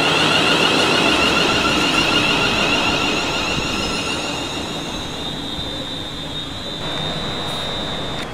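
Electric multiple unit (a Class 350 Desiro) running past on the track and moving away. A high whine over wheel-on-rail rumble fades steadily, leaving a thin steady high tone near the end.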